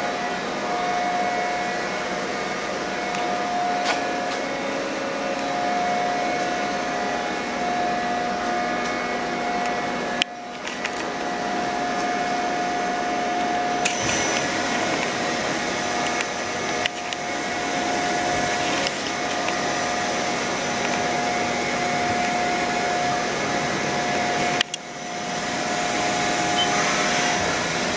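Mori Seiki SL-15 CNC lathe running under power: a steady machine hum with a held mid-pitched whine. A few sharp clicks break it, two of them followed by a brief dip in level.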